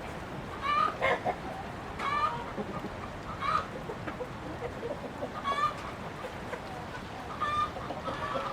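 Chickens clucking, with short calls every second or two.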